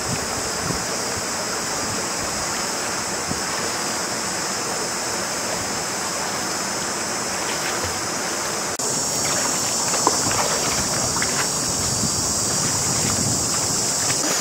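Shallow river water splashing around the legs of people wading through it, over a steady rushing hiss of water. The splashes get louder and closer from about nine seconds in.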